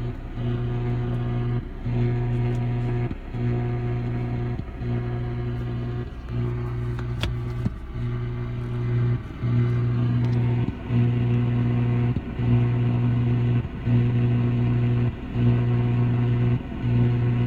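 Radio-frequency interference on an AM broadcast radio tuned around 950 kHz: a loud, steady low buzz that drops out briefly about every second and a half in a regular, very distinctive pattern. Its cause is unknown; the operator had hoped it would line up with the tower's strobe lights.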